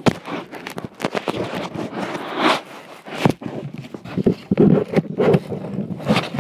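Close handling noise: irregular rustling, scraping and quick knocks right at the microphone, as packaging and the phone are handled.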